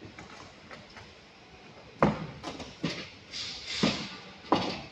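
A run of five or so sharp knocks and thuds over about two and a half seconds, with a scraping rustle between them: cardboard packaging being pulled off a boxed roll-cab tool chest. The first and last knocks are the loudest.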